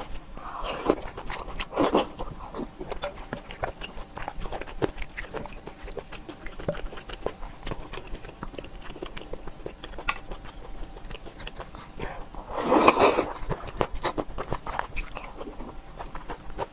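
Close-up eating sounds: a person chewing and biting, with many short wet mouth clicks and crunches. There are louder bursts about a second or two in and again about thirteen seconds in.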